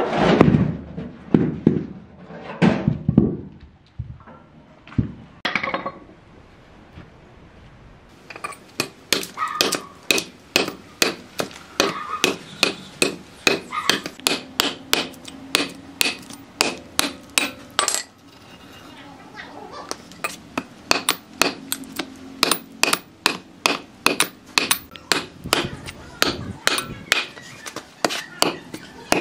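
Hammering: a few scattered heavy knocks, then steady hammer blows at about two a second with a short pause about two-thirds of the way through.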